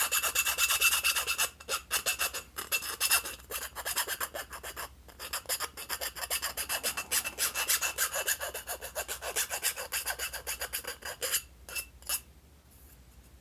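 Needle file scraping back and forth in quick strokes, about four a second, deburring the cut edge of a square hole in a tube. The filing pauses briefly a couple of times and stops near the end.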